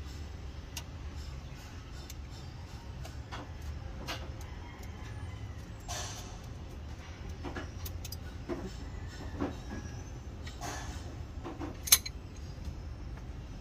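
Scattered metallic clicks and clinks of a wrench working among the valve springs of an open cylinder head, with one sharp clink about twelve seconds in, over a steady low rumble.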